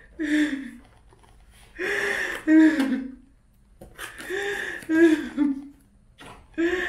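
A woman's wordless vocalizing in four short bursts with pauses between them, her voice sliding up and down in pitch.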